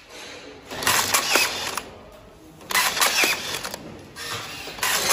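WL-460 rebar tying tool running through its tying cycle at rebar crossings: two cycles about two seconds apart, with a third starting near the end. Each is about a second of motor and mechanism noise, as the tool wraps, twists and cuts the tie wire, with a whine falling in pitch.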